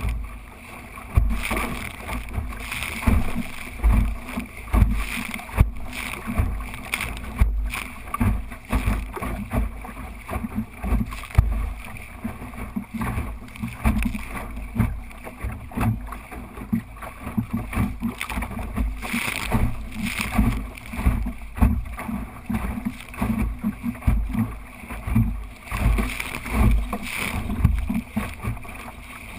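Water rushing and splashing along the hull of a small sailing dinghy under way, with irregular gusts of wind buffeting the boat-mounted microphone.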